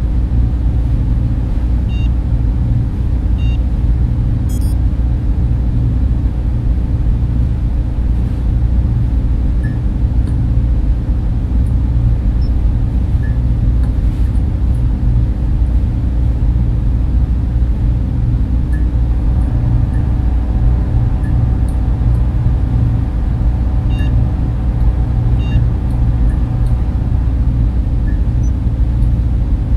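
Steady, loud server-room drone of servers and ventilation fans, with faint scattered electronic beeps and a quick run of high chirps over it.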